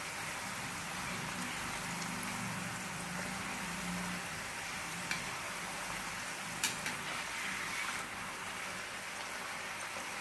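Moong dal nacho chips deep-frying in hot oil in a metal kadhai on medium heat, a steady sizzle, with a few sharp clicks of a metal spatula against the pan as the chips are turned.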